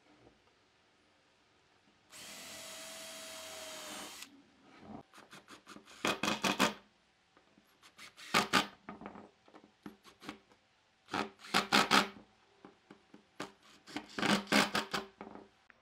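Makita 18V cordless impact driver driving screws into a wooden hub. It runs with a steady whir for about two seconds, then gives four short bursts of rapid hammering clicks, one for each screw.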